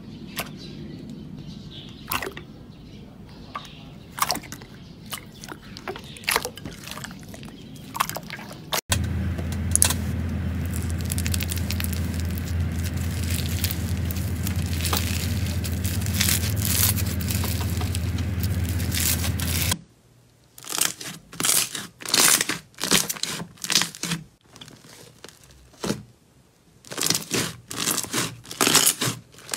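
Crunchy slime being squeezed and pressed by hand, giving sharp crackles and crunches, in three short clips cut together. A steady low hum runs under the middle clip. In the last clip the crunches come separately, a few a second.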